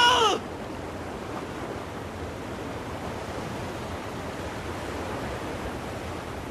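A woman's high, held scream drops in pitch and cuts off suddenly just after the start, the cry of a swimmer under shark attack. Then there is only the steady wash of open sea surf and wind.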